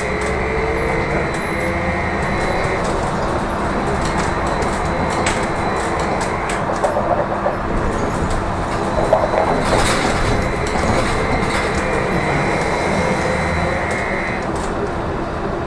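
Trolleybus running noise from inside the vehicle: a steady high electric whine from the traction drive that stops about three seconds in and comes back near the end, over continuous rolling noise. Rattles and knocks, loudest around nine to ten seconds in as it rolls over tram tracks.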